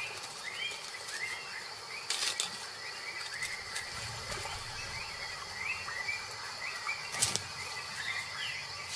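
Natural outdoor ambience: many short rising bird chirps repeat over a steady insect drone, with a few sharp clicks.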